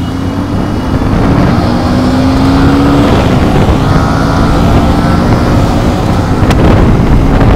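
Motorcycle engine running while riding, under heavy wind and road noise, its note rising a little in pitch a couple of seconds in.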